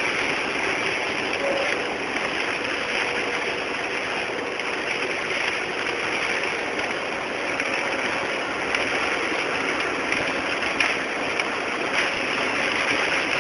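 Hailstorm precipitation: a dense, steady hiss of heavy rain and hail, with a few sharp ticks.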